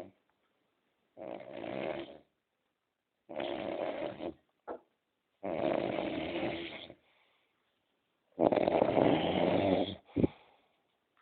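Loud snoring: four long snores about two seconds apart, the last the loudest, each followed by a quiet gap, with a short snort after the last one.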